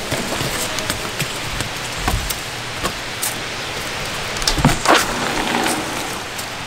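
Wind buffeting the microphone as a steady rushing noise with a low rumble, with scattered light clicks and a louder cluster of knocks about four and a half seconds in.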